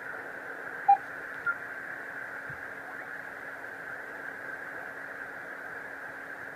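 Amateur radio receiver hiss: steady band noise with a faint low hum while no station is coming through. About a second in there is a single short Morse beep, and a fainter, higher blip half a second later.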